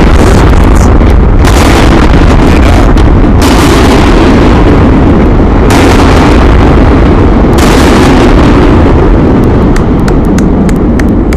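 Explosive demolition of the concrete cooling towers: blasting charges and the towers collapsing make a loud, distorting rumble, with a sharp crack about every two seconds.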